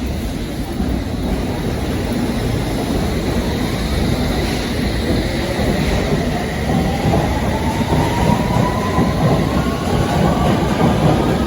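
Electric passenger train running along the platform over rail rumble and clatter, with a motor whine rising in pitch from about halfway through as the train picks up speed.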